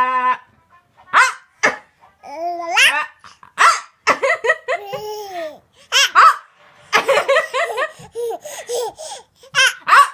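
A small child making short, squeaky hiccup-like yelps to imitate hiccups, with pitch jumping upward on each one, mixed with laughter.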